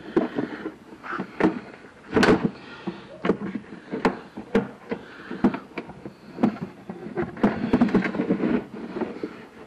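A run of irregular sharp knocks, clanks and thuds: hands and tools working a part loose on an old golf cart.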